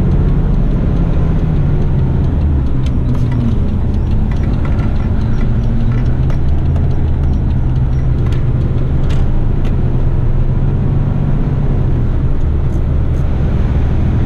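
Heavy rigid truck's diesel engine running as it drives, heard inside the cab: a steady low drone with a few faint clicks.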